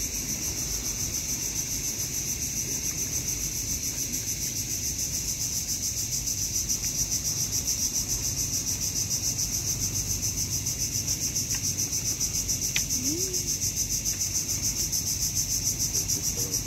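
A steady chorus of insects: a loud high buzz that pulses rapidly and evenly, with a low rumble underneath.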